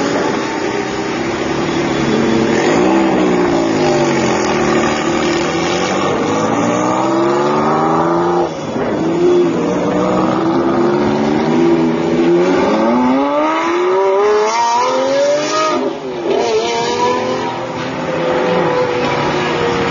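Supercar engines accelerating hard past one after another, the pitch climbing through each gear and dropping back at the shifts, about eight and sixteen seconds in.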